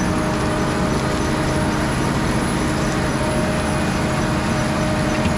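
Potato harvesting machinery running steadily: a continuous engine and machine noise with a few constant tones over it.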